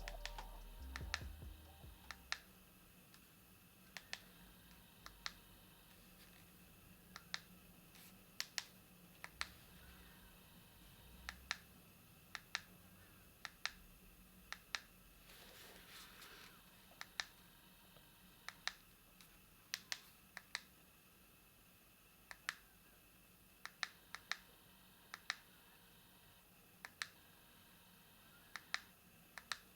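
Keypad buttons of a MAXCOM MM462BB feature phone clicking as they are pressed one at a time, every second or two, sometimes two presses in quick succession.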